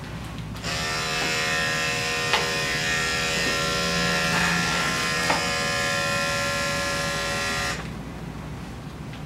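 Andis electric dog-grooming clipper switched on about a second in, running with a steady even buzz, then switched off near the end, with a couple of faint knocks over it.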